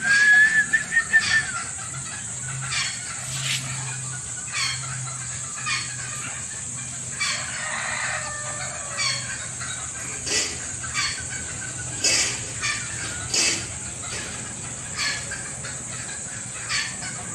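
Serama rooster crowing once about halfway through, the call dropping in pitch at its end, with short clucks and sharp taps scattered around it. A loud burst of sound comes right at the start.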